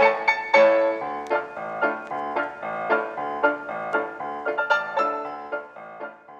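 Background music: quick piano notes played several at a time, fading out near the end.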